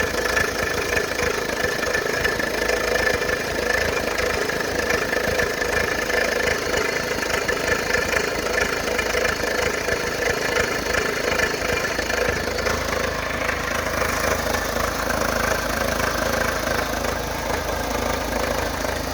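Fiat Palio engine idling with a loud, ugly knocking, as if the bottom end were hammering, a noise that goes away when the engine is revved. The mechanic traces it to the timing belt, whose tensioner he thinks may have come loose and left the belt wrongly tensioned.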